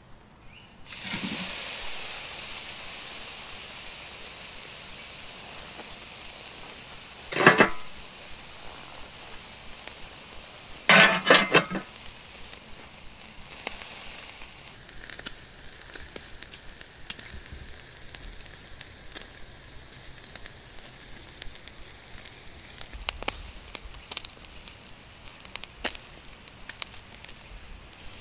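Ox ribeye tomahawk steak laid on a hot grill grate over glowing charcoal, sizzling loudly at once, then easing into a steady, quieter sizzle with scattered crackling pops. It is searing over direct heat. A short sharp knock comes about seven seconds in, and a quick rattle of knocks about eleven seconds in.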